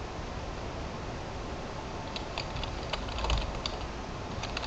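Typing on a computer keyboard: irregular key clicks, starting about two seconds in and coming more thickly towards the end, over a steady low room hum.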